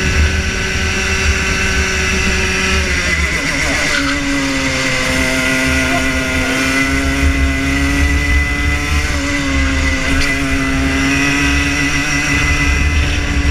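Rotax Junior Max 125cc two-stroke kart engine heard on board, running hard. Its pitch drops about three seconds in, holds lower through a long corner, and climbs again from about ten seconds in as the kart accelerates.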